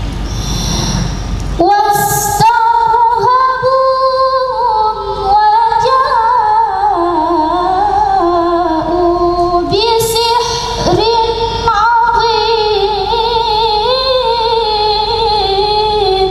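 A woman reciting the Quran in the melodic, ornamented tajwid style, holding long wavering notes. The voice comes in about a second and a half in, over steady background noise, and breaks briefly about ten seconds in.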